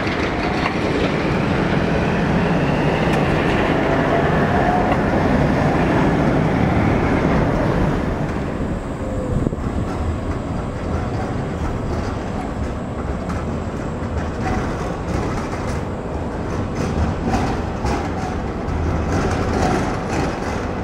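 A pair of coupled Tatra T3SUCS trams passes close by, a loud steady rolling rumble with a faint whine that rises and falls. About eight seconds in, the sound cuts to a second T3SUCS pair rolling slowly up to a stop, quieter, with scattered sharp clicks.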